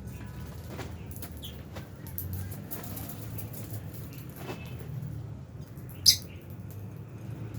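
A flock of lovebirds chirping in short, sharp calls, with scattered clicks and rustles among them. One loud shrill chirp stands out about six seconds in. A steady low hum runs underneath.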